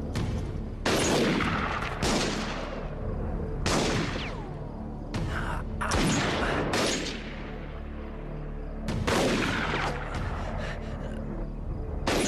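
Gunfight in a western film soundtrack: about eight rifle and revolver shots at uneven intervals, some followed by a falling ricochet whine.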